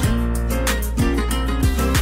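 Background instrumental music: plucked guitar-like notes over a steady bass.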